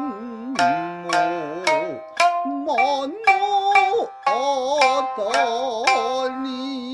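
Nagauta singing with shamisen: a voice holding long, wavering notes over sharp plucked shamisen strokes that come every half second to a second.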